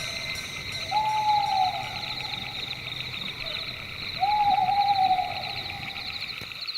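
An owl hooting twice, each hoot about a second long and dropping in pitch at the end, over a steady chorus of night insects chirping in fast pulses.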